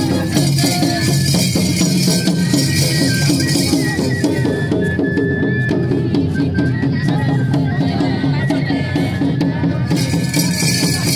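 Music with dense, rapid drumming and percussion, played steadily without a break.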